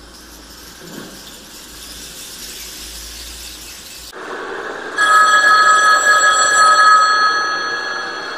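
A steady hiss, then a loud bell-like ring that starts sharply about five seconds in. It holds two clear high tones for about two seconds, then slowly fades.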